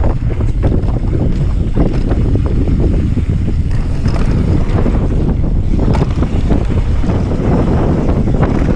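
Wind buffeting the microphone of a camera on a mountain bike riding fast downhill, with tyre rumble on the dirt trail and frequent knocks and rattles from the bike over bumps.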